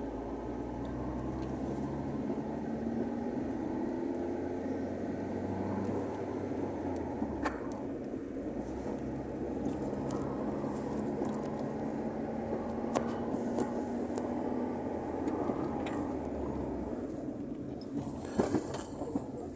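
Car engine and tyre noise on asphalt, heard from inside the cabin while driving steadily, the engine's pitch drifting slowly. A few short clicks or knocks cut through, with a small cluster of them near the end.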